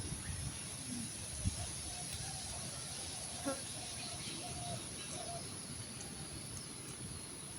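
Sleeping calves snoring softly, low breaths, with a few faint short bird chirps and a small knock about three and a half seconds in.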